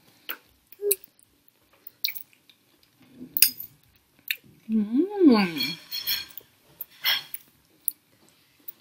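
Close-up eating sounds of a person chewing a mouthful of spaghetti: scattered wet mouth clicks and smacks, with a brief hummed vocal sound rising and falling in pitch about five seconds in.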